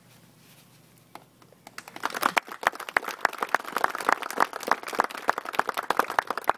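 A small crowd applauding, the clapping starting about two seconds in and going on briskly.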